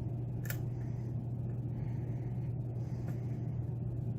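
Steady low electrical-sounding hum, with a faint metallic click about half a second in and another about three seconds in, from a hook pick working the pin stack of a Yale pin-tumbler lock under tension.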